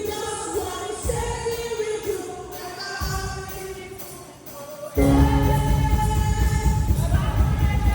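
Church choir singing a gospel song with instrumental accompaniment. The music eases off to a softer passage, then comes back in loudly about five seconds in.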